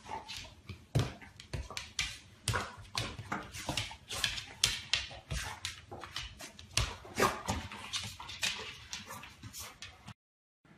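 A dog sniffing and huffing at a lemon slice in short, sharp, irregular bursts, about three a second. It cuts off suddenly near the end.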